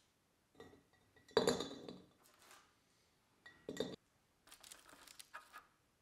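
Hard twice-baked biscotti set down into a glass storage jar: a series of short clinks and knocks against the glass with a brief ring, the loudest about one and a half seconds in.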